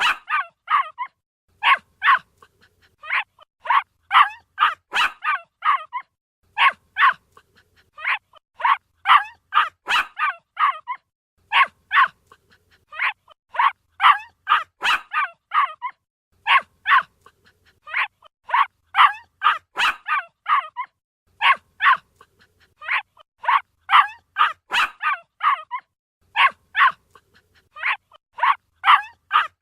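Puppy yapping: quick, high-pitched barks in bursts of four to six, a new burst about every one and a half seconds.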